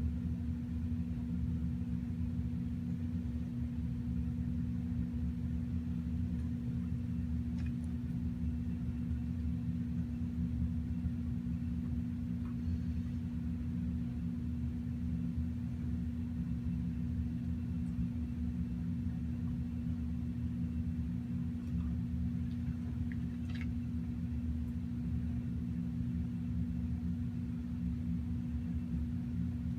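A steady low hum with one strong even tone. A few faint small clicks come through it, about eight seconds in and again past twenty seconds.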